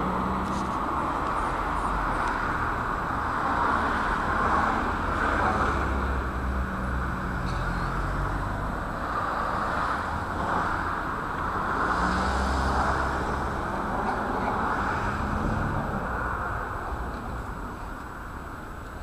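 Muffled outdoor street noise with road traffic and a low engine hum that comes and goes, easing off near the end.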